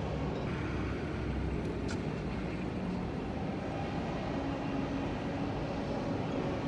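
Steady low rumbling background noise, with a brief click about two seconds in.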